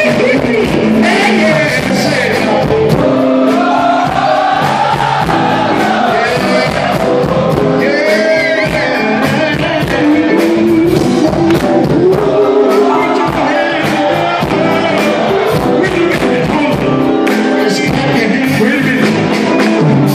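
Live funk band playing with several singers: voices over electric guitars, drums and keyboards.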